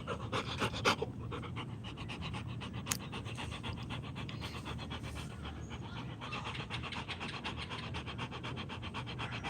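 A dog panting quickly and evenly, many short breaths a second.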